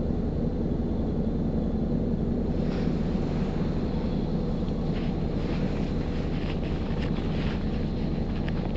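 Isuzu Erga non-step city bus's diesel engine running steadily, with no rise or fall in pitch, heard from inside the bus. Light irregular ticks and rattles join in about three seconds in.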